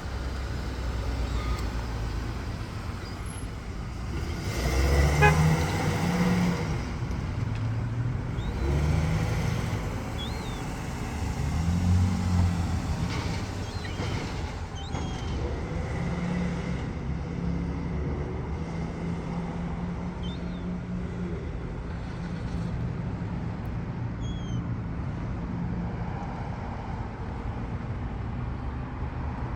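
Motor vehicle engines running in traffic, a low steady hum that swells louder about five seconds in and again about twelve seconds in as vehicles pass. A few faint, short high chirps sound over it.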